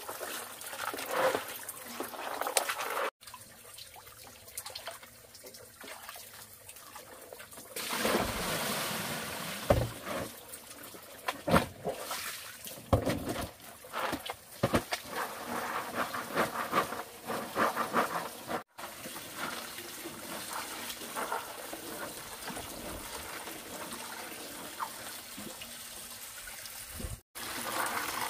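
Water trickling and splashing, with many short irregular splashes and knocks over a steady wash of noise.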